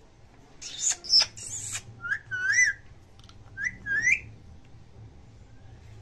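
Indian ringneck parakeet giving two harsh screeches about a second in, followed by two short, high, whistle-like warbling calls that bend up and down in pitch.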